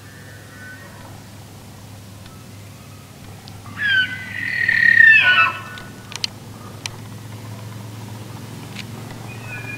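Bull elk bugling: a loud, high whistled call lasting about two seconds that slides down in pitch at its end. Fainter bugles come in at the start and again near the end.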